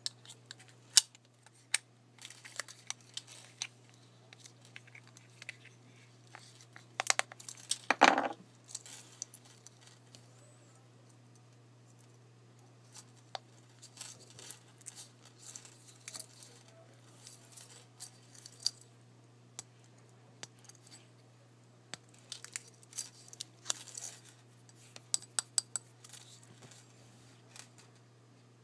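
Small sharp clicks, taps and scrapes of a metal pocket watch case and its chain being handled as the case back is fitted on, with a louder scrape about eight seconds in and busy runs of clicks in the second half.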